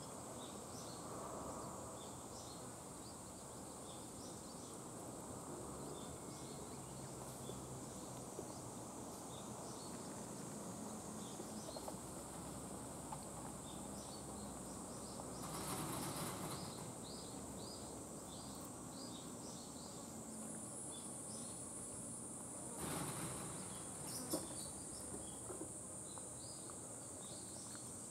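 Outdoor insect drone: a steady high-pitched buzz with many short chirps over it. Two brief rustles come about halfway through and near the end, the second followed by a sharp click.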